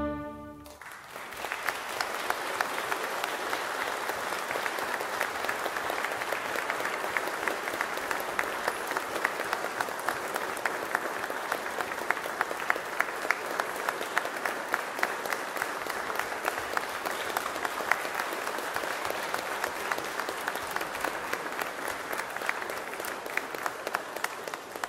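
The final chord of an orchestra and choir cuts off in the first second. Then an audience applauds steadily, fading only near the end.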